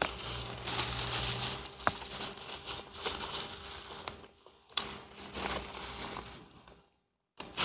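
Close-up chewing of a mouthful of burger, with a paper napkin crinkling and rustling as the mouth is wiped. The sound drops out briefly twice.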